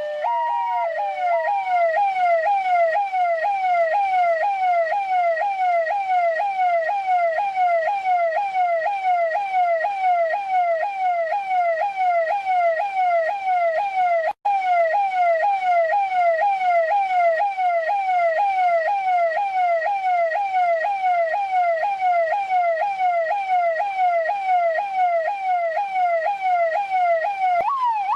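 Police car's electronic siren, as used by Indian police. It opens on a two-tone high-low call, then switches to a fast repeating yelp of about two rising sweeps a second. There is a split-second dropout midway, and near the end it shifts to a higher, quicker sweep.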